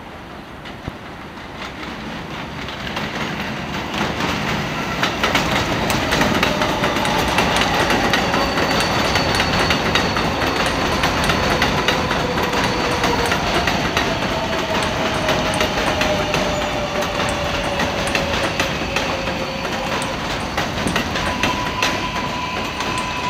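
R142A subway train pulling into an elevated station, its sound growing louder over the first few seconds, with wheels clacking over rail joints. Its electric propulsion whine falls slowly in pitch as the train slows, and a steady tone sets in near the end.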